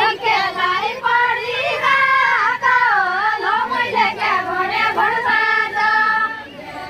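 A high-pitched female voice singing unaccompanied in the style of a Far-Western Nepali deuda folk song, long phrases with the pitch sliding up and down, trailing off near the end.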